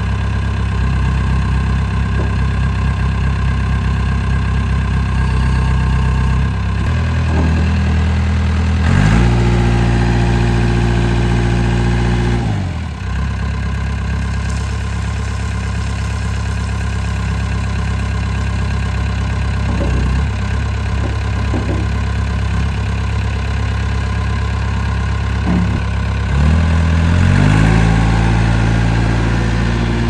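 2003 JCB 210S backhoe loader's diesel engine running. Its speed rises about a quarter of the way in and drops back to idle a few seconds later, then rises again near the end, while the front loader bucket is raised and dumped.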